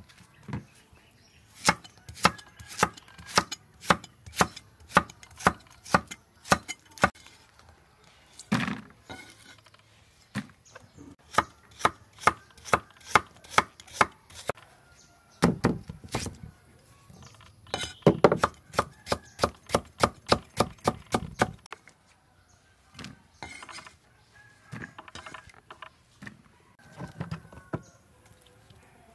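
Cleaver chopping vegetables, carrots among them, on a wooden chopping block. Runs of sharp knocks come about two a second, with short pauses between the runs.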